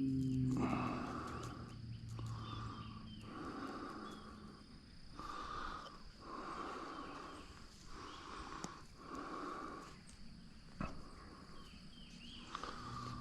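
A man breathing hard and heavily, in steady, regular breaths about one every second and a half.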